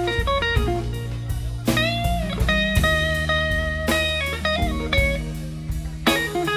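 Band playing an instrumental break in a slow bluesy song: a lead guitar plays a melodic solo with a bent note about two seconds in, over bass and drum kit.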